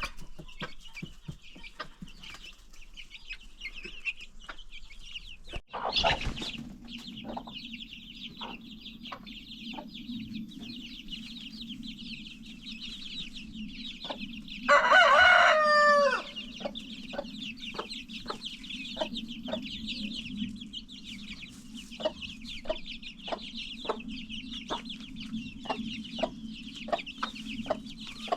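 A flock of chickens: a steady chorus of high cheeping chicks with hens clucking in short notes, and a rooster crowing once about halfway through, the loudest sound, its call dropping at the end. A single knock sounds about six seconds in.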